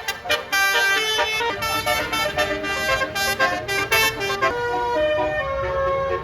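Tour bus's basuri telolet horn, sounded through roof-mounted trumpets, playing a tune of held notes that change pitch in steps.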